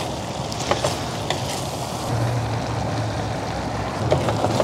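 Egg frying in a pan over a butane camp stove: a steady sizzle with a few faint ticks. A low hum comes in about two seconds in.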